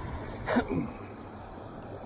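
Steady rush of water pouring over a spillway weir. About half a second in comes a short human vocal sound that falls in pitch.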